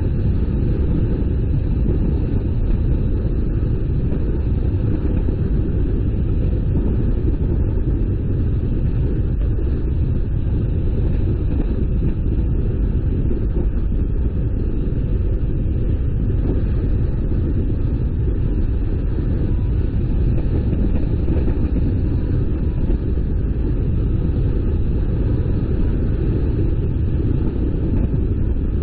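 Car driving, a steady low rumble of road and engine noise with no change in speed or pitch.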